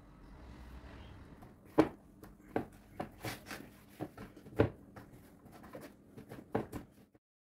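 A string of light knocks and clicks from handling things on a kitchen counter, about a dozen irregular taps, the two loudest a little before 2 s and near 5 s, stopping suddenly just after 7 s.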